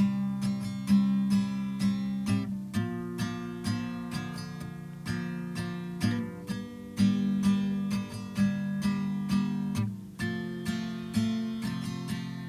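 Strummed acoustic guitar playing an instrumental passage with no singing, about two strums a second, the chord changing every few seconds.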